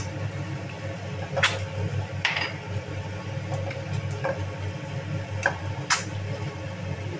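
Quail eggs frying in oil in a nonstick pan, a faint sizzle over a steady low hum. Several sharp clicks from a small ceramic bowl knocking the pan as more eggs are tipped in.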